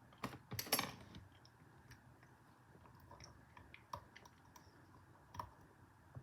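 Lock pick clicking and scraping against the pins and warding inside a Federal 95 padlock's keyway. A cluster of loud clicks comes in the first second, then light, scattered ticks, with sharper ones about four and five and a half seconds in.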